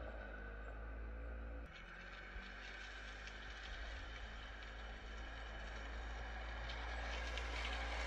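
Yamaha Phazer snowmobile engine running at a distance, growing steadily louder in the second half as the sled comes back down the hill toward the listener.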